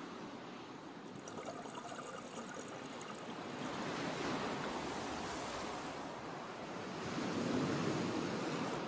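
Steady rushing sound of sea water, swelling slightly near the end.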